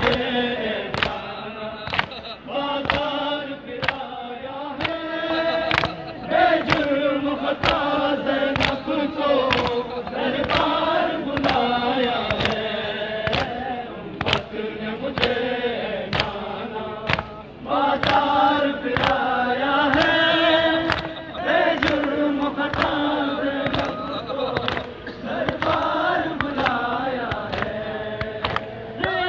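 Men chanting a Muharram noha together, with sharp rhythmic strikes about once a second that keep time, typical of matam chest-beating.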